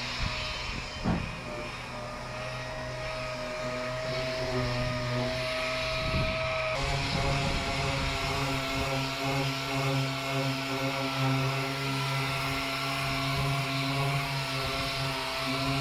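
A motor-driven workshop machine running steadily with a humming whine and a hiss, its pitch shifting slightly about six and a half seconds in; a couple of short knocks in the first second.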